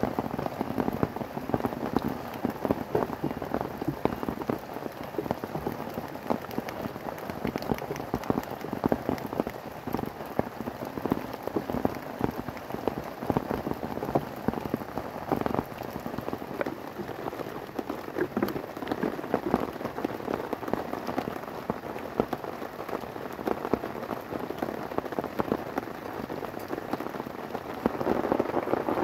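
Steady rain falling on a camping tent and tarp: a dense, even hiss of countless drop impacts, growing a little louder near the end.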